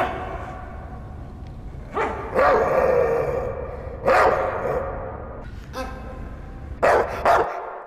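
Dog barking: a handful of barks a second or two apart, one of them drawn out, over a low steady rumble that stops just before the end.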